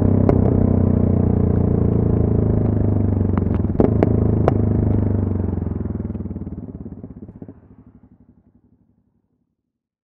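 Yamaha MT-03's 660 cc single-cylinder engine heard from the rider's seat, off the throttle with the revs falling as the bike slows. There are several sharp clicks a little past the middle, and the sound fades out over the last few seconds.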